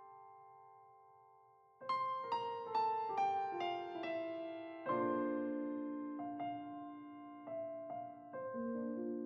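Solo piano background music. A held note fades away, then about two seconds in a quick run of falling notes begins, followed by slower notes and chords.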